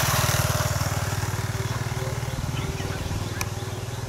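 A small engine running steadily with an even, rapid pulse, slowly growing fainter.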